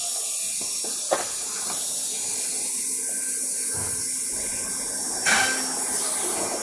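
ELE1325 ATC CNC router running, a steady high hiss, with a sharp click about a second in and a louder brief knock a little after five seconds.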